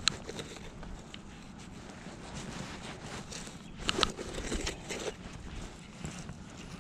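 Gloved hand and pinpointer rustling and scraping through loose soil and dry grass around a dug turf plug, with a brief sharp click near the start and another about four seconds in.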